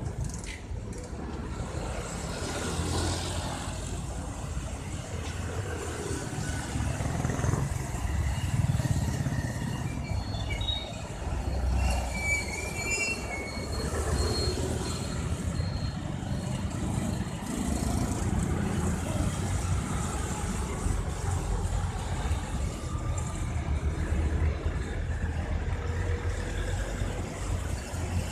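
Busy street traffic: cars and motorbikes passing with a continuous, rising and falling engine rumble. Brief high tones sound about halfway through.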